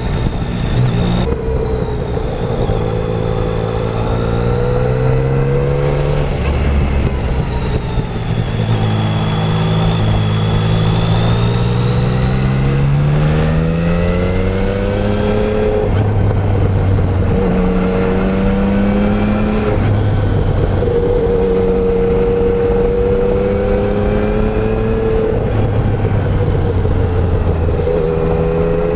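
2020 Yamaha Tracer 900's 847 cc inline three-cylinder engine on its stock exhaust, under way. Its pitch climbs as it pulls and drops back at the gear changes, about 6, 13 and 16 seconds in, then holds steadier.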